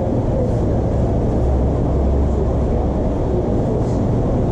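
Steady low rumble of background noise in a small eatery, even throughout with no distinct events.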